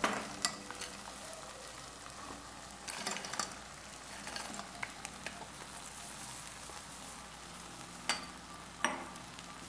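Frozen okra poured into a hot pot of tomato sauce, sizzling steadily as it lands. Sharp knocks from the pieces and a wooden spatula hitting the pot come at the start, a few seconds in, and twice near the end.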